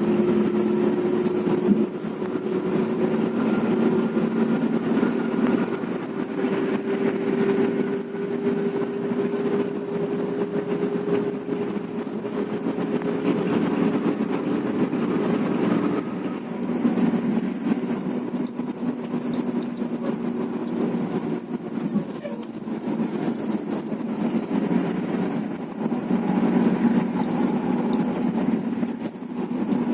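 Bus engine running with a steady drone whose pitch drifts slowly up and down.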